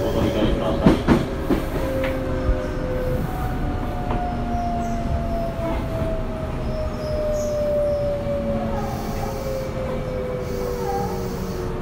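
Interior running sound of a Tobu 9050 series EMU: a few sharp wheel clacks over rail joints in the first seconds, then the Toyo GTO-VVVF inverter's whine slowly falling in pitch as the train slows, typical of braking on the approach to a station.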